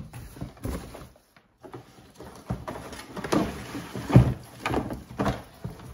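Handling noise as artificial floral stems and picks are taken out of a box and moved about: irregular rustling and scraping with several dull thumps, the loudest about four seconds in.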